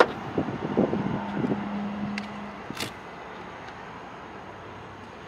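Crinkling and rustling of clear plastic film being handled for the first two and a half seconds or so, then a single short spritz from a spray bottle of install fluid near the three-second mark. A low steady background hum runs underneath.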